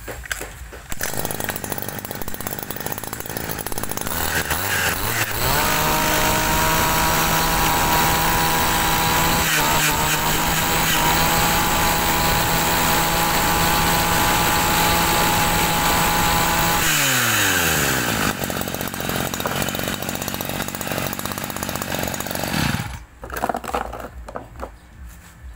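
Robin NB411 two-stroke brush-cutter engine, started about a second in and revved up about five seconds in. It holds a steady high-speed pitch for about eleven seconds, drops in pitch as the throttle is let go, runs at idle and cuts off abruptly a couple of seconds before the end.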